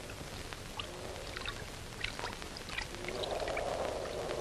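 Steady hiss with scattered faint clicks and crackles from an old film soundtrack, with a faint low hum rising about three seconds in.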